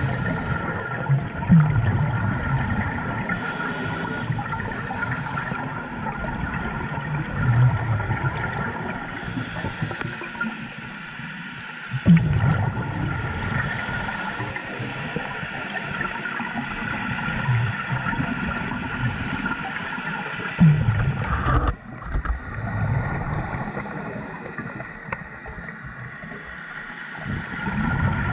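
Scuba diver breathing through a regulator underwater: a hissing inhale, then a burst of low, rumbling exhaust bubbles, repeating about every five to six seconds over a steady high tone.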